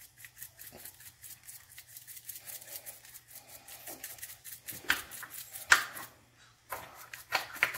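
Seasoning bottle shaken over raw chicken wings: a fast run of small rattling clicks, with a few louder knocks in the second half.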